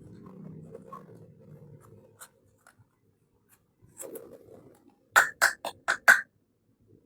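Small plastic toy kitchen pieces and packaging being handled: soft rustling and a few light ticks, then a quick run of five sharp clicks about five seconds in.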